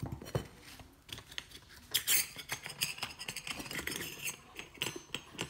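Small metallic clicks and scrapes of a ceiling light fixture's metal globe nut being turned by hand on its threaded rod, with the glass globe shifting against it.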